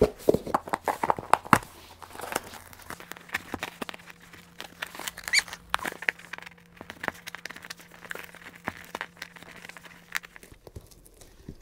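Screwdriver prying heavy-duty metal staples out of a corrugated cardboard box: an irregular run of sharp clicks and scrapes with cardboard crinkling and tearing.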